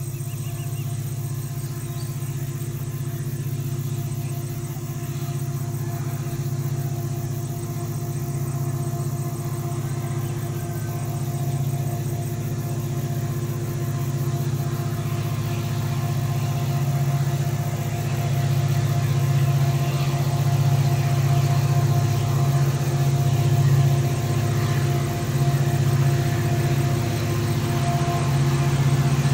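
Two CC 205 diesel-electric locomotives, double-headed on a loaded coal train, running with a steady low engine drone that grows gradually louder as they approach.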